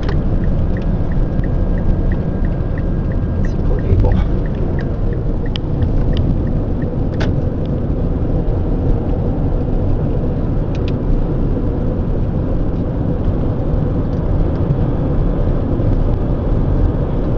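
Steady low road and engine rumble of a car driving on a highway, heard from inside the cabin. A faint run of light, evenly spaced ticks, about three a second, comes in the first five seconds or so.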